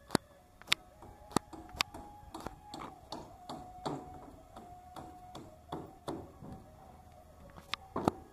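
Sharp clicks or taps, roughly two a second and unevenly spaced, over a faint steady hum.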